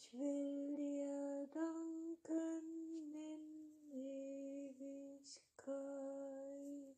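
A woman singing a slow melody in long held notes, each about a second, with short breaks and small steps up and down in pitch between them; the voice cuts off just before the end.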